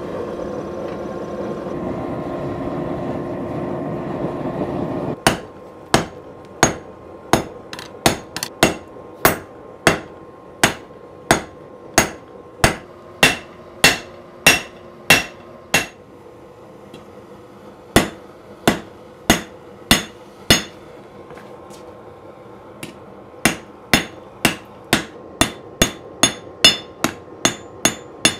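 A gas forge running with a steady roar for about the first five seconds, then a hammer striking a hot 80CrV2 steel knife blade on an anvil, about two ringing blows a second in runs with pauses of two to three seconds between them.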